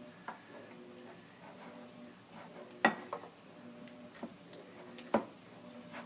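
A spoon knocking against a mixing bowl while stirring slime: four sharp clinks, the loudest about three seconds in, over a faint steady hum.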